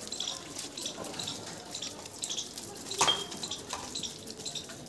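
Water running from a garden hose and splashing onto a car and wet paving. About three seconds in there is one sharp knock or clatter, the loudest sound.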